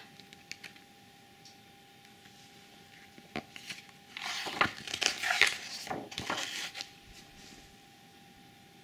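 Paper pages of a picture book being handled and turned by hand: a soft tap about three and a half seconds in, then about three seconds of paper rustling and sliding.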